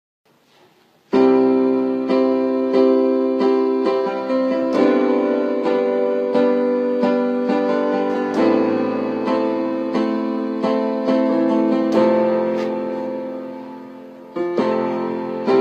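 Piano introduction to a song: repeated chords struck about twice a second, each ringing and fading, with the playing dying away near the end before new chords come in.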